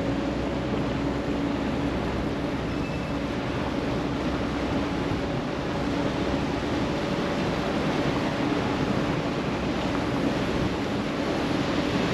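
Wooden motorboat's inboard engine running at steady cruising speed, a constant hum, with water rushing along the hull and wind on the microphone.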